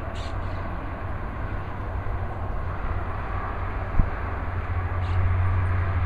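Steady low rumble of distant road traffic, with one short dull thump about four seconds in.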